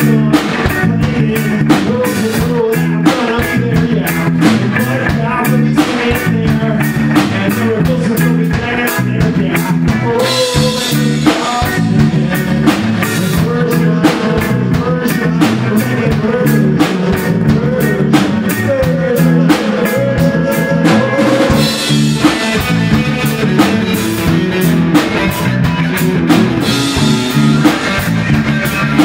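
Live amplified rock band playing: electric guitar and bass guitar over a steady drum-kit beat, with a man singing into the microphone at times. Loud and continuous throughout.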